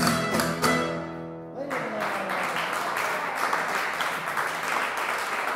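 Guitars and violin close a flamenco-style malagueña on a final chord that rings out and fades, and after about a second and a half an audience breaks into steady applause.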